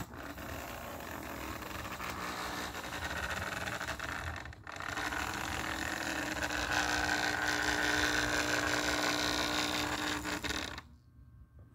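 Lionel No. 60 toy trolley's electric motor whirring as the car runs along the track, growing louder as it comes closer. The sound dips briefly about halfway through and cuts off suddenly near the end.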